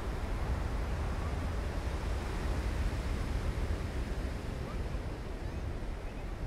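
Ocean surf washing steadily onto the beach, with a low wind rumble on the microphone. A few faint short high chirps come near the end.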